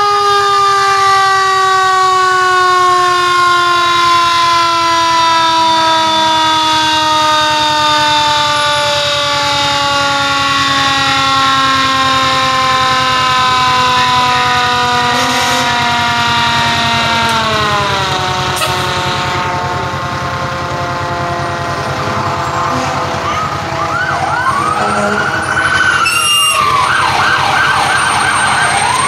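A fire truck's mechanical siren winds down slowly in pitch, falling more steeply about 17 seconds in. From about 23 seconds in, other fire engines' sirens sweep up and down, some in fast yelps and some in slower wails. Truck engines run underneath.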